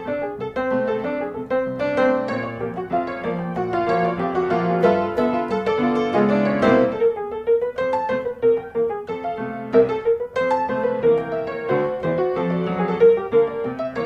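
Background piano music with quick, light notes.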